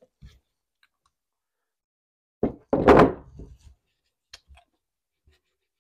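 A steering wheel knocking twice against the wooden workbench as it is turned over and set down, about two and a half seconds in, followed by a few faint taps.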